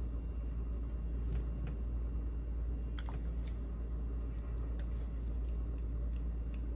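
Spoon scooping cooked rice out of a rice cooker: soft squishes and a few faint clicks over a steady low hum.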